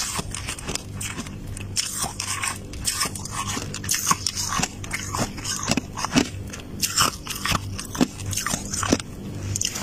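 Close-miked biting and chewing of soft, powdery freezer frost: an irregular run of crisp crunches, several a second, over a faint low hum.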